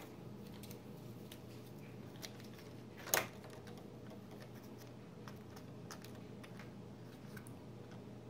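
Hands handling a small plastic toy capsule: faint taps and clicks, with one sharper click about three seconds in, over a low steady hum.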